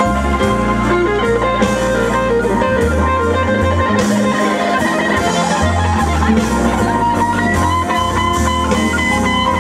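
Live rock band playing an instrumental passage: electric guitar over bass, keyboards and drums.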